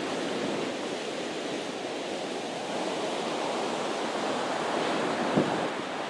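Steady rush of ocean surf breaking on a sandy beach, with wind on the microphone and a brief louder bump just after five seconds in.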